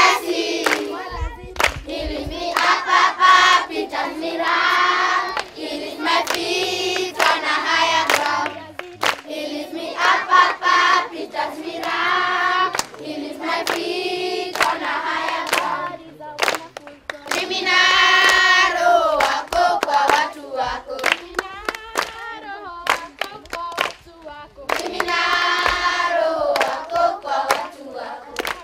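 A group of children singing together in chorus while clapping their hands, the song coming in phrases with short breaks between them.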